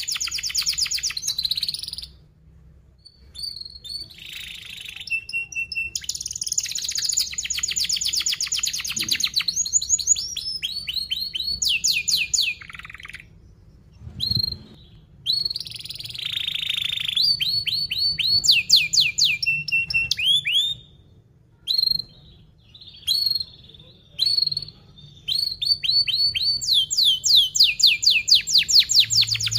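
Domestic canary singing in phrases of very fast, tightly packed trills and rolls mixed with downward-sweeping notes, with short pauses between phrases.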